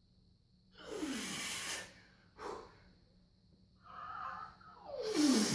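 A weightlifter's forceful breathing while holding a heavy barbell low in a front squat. There is a long hissing exhale about a second in and short breaths after it, then a louder strained exhale with a falling voiced edge near the end.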